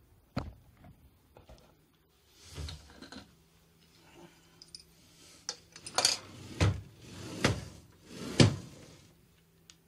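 Makita slide miter saw handled by hand: a sharp knock near the start, then a run of four loud metallic clunks and rattles in the second half as the saw head is gripped and moved.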